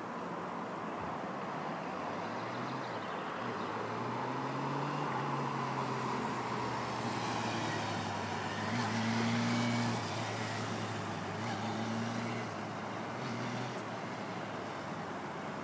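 Motorcycle engine running at low speed through slow training manoeuvres, its pitch rising briefly as the throttle opens about nine seconds in and again about twelve seconds in. It is loudest around the first rise, as it passes close. Steady traffic hiss underneath.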